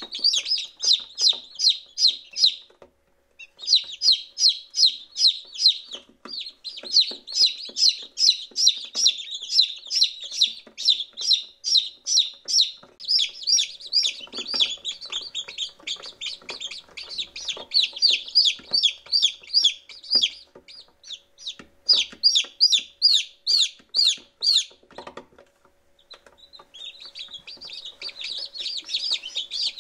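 Day-old chicks peeping continuously: many short, high peeps overlapping at several a second, with brief lulls about three seconds in and again near the end. A faint steady hum sits underneath.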